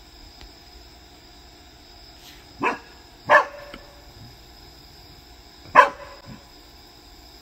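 A corgi-Labrador mix dog barks three times at a frog: two sharp barks close together, then a third a couple of seconds later. Under the barks is a steady high insect drone.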